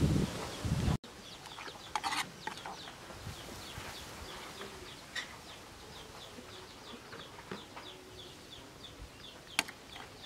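A rapid, regular series of high bird peeps, about three a second, typical of chickens in a rural yard. Over it come a few sharp clinks and knocks of a metal spoon against a wooden mortar. Loud handling thumps fill the first second and stop abruptly.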